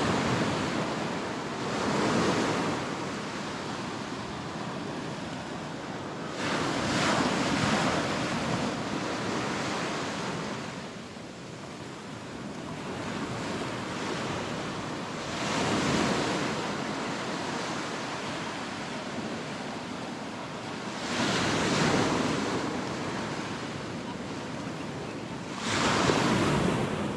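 Ocean surf breaking and washing up a sandy beach, the noise swelling with a new wave every five or six seconds.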